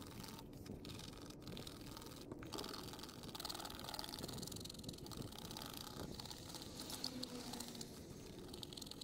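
Faint, irregular scraping of a razor-blade scraper against a boat's fiberglass transom as it lifts off old sticker adhesive.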